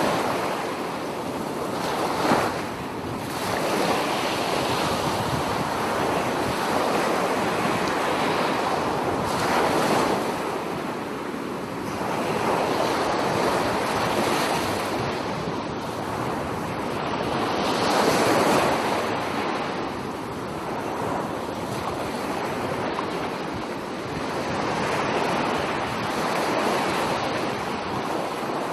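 Bay of Bengal surf, shallow waves washing in and breaking, the wash swelling and easing every few seconds, with some wind on the microphone.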